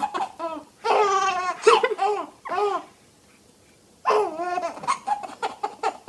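Baby laughing out loud in three bouts, the last two long, with a pause of about a second around the middle.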